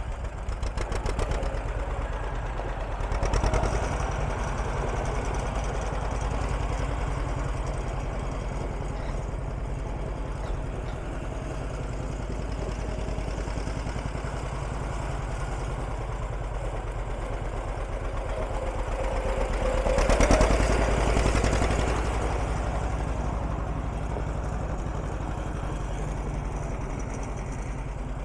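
John Deere 50 tractor's two-cylinder engine running with a steady, even beat as the tractor drives around, swelling louder twice, about three seconds in and about twenty seconds in.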